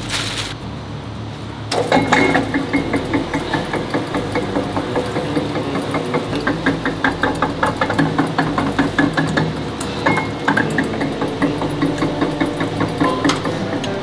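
Steel two-roll rubber mill running with white swim-cap compound between its rollers: a steady machine hum with rapid, dense clicking and rattling that starts abruptly about two seconds in.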